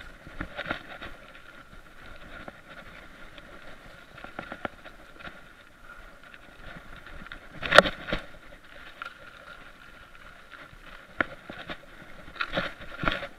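Mountain bike rolling over a dirt trail, picked up by a chest-mounted action camera: the bike and camera rattle with knocks from bumps, the loudest about eight seconds in, with more clusters near the start and the end.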